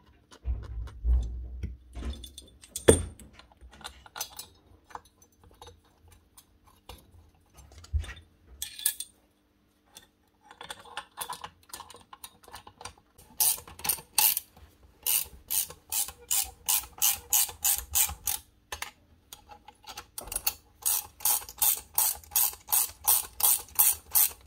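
Metal parts knocking as bolts are fitted, then a ratchet wrench clicking in a regular run, about two to three clicks a second, as the breaker's tool-holder bolts are tightened.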